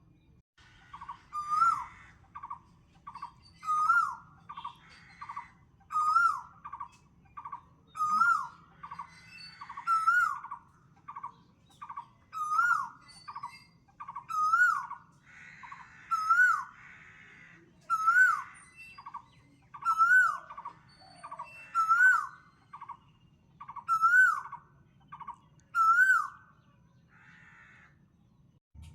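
A bird calling in the same phrase about every two seconds: a quick run of short notes, then a louder slurred whistle, with thin high chirps above. The calling stops shortly before the end.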